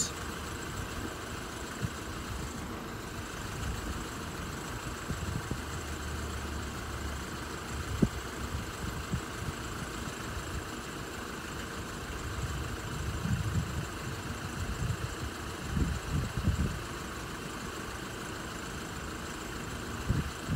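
Road vehicle engines idling steadily in traffic held at a closed level crossing, with a few low rumbles partway through.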